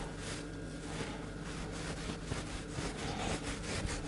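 Large chef's knife sawing back and forth through raw boneless pork loin on a wooden cutting board, in repeated slicing strokes.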